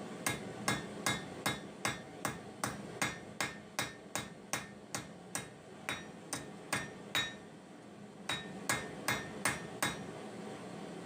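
Hand forging: a hammer striking steel on an anvil in a steady rhythm of about two and a half blows a second, each blow ringing briefly. About seven seconds in the blows stop for a moment, then a short run of five more follows.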